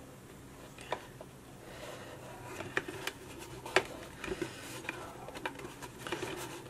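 Hands pressing and rubbing a freshly glued cardstock panel into place: faint paper rustling and scraping with a few light clicks and taps.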